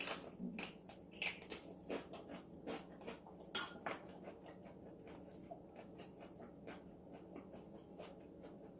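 Close-up eating sounds: irregular crisp crunches and clicks from chewing raw vegetables, with light clinks of dishes or cutlery.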